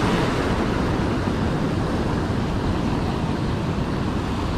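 Rough sea surf and heavy swell breaking over a boulder shore: a steady, dense rushing noise.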